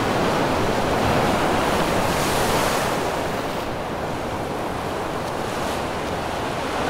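Ocean surf breaking and washing over a flat rock ledge: a steady rush of waves, a little louder in the first three seconds.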